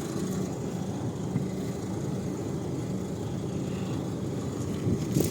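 Toy bulldozer running with a steady mechanical hum, with a short click near the end.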